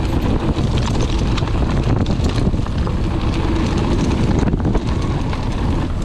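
Wind rushing over the action camera's microphone as a mountain bike rolls fast down a loose gravel track, with the steady crunch and rattle of the tyres on the stones and the bike shaking over them.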